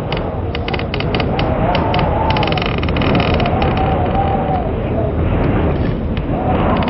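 Howling blizzard wind: a heavy low rumble with a whistling tone that rises and falls, and scattered clicks and crackles through it.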